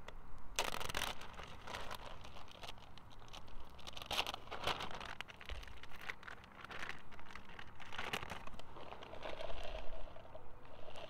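Plastic bags crinkling as they are handled, a zip-top bag and a bag of shredded cheese, in several bursts of rustling.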